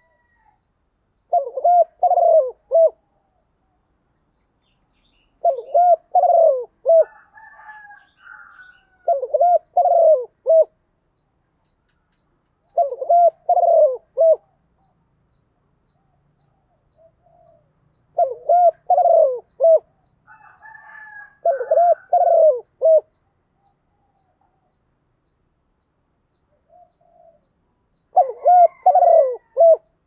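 Spotted dove cooing: short phrases of three or four low coos, repeated about seven times with a few seconds' silence between. It is the advertising call of a caged decoy dove, used to call wild doves in.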